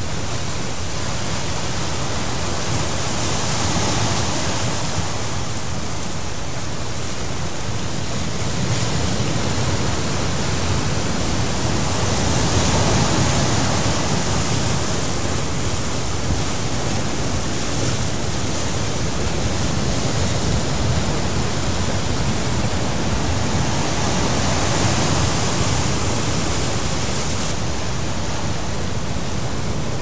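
Heavy ocean surf breaking against the foot of the sea cliffs: a continuous rushing noise that swells and eases several times as the waves come in.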